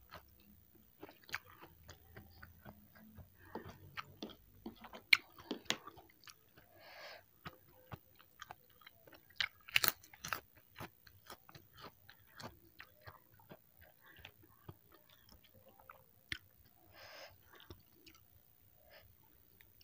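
Close-miked chewing and mouth sounds of a person eating soupy instant noodles, with scattered sharp clicks of a wooden spoon and fork against the plate; the loudest clicks come about halfway through.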